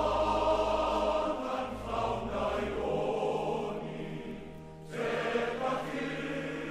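Choral music: voices hold long sustained notes over a steady low bass. It dips briefly about five seconds in, then swells again.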